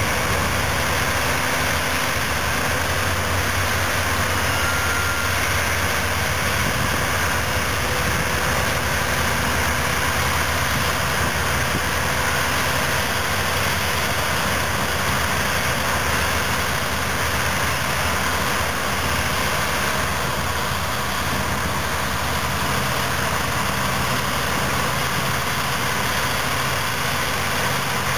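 Heavy diesel engines working steadily under load as a Caterpillar 651B wheel tractor-scraper is push-loaded by a Caterpillar D10N bulldozer repowered with a C27 V12 diesel. The engines run at a constant pitch.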